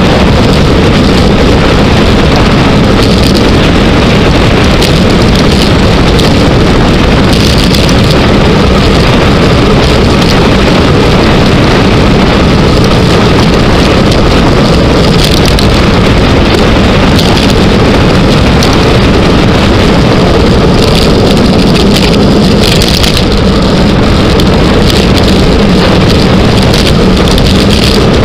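Loud, steady wind buffeting on the microphone of a camera on a road bike descending at speed, with a few brief crackles.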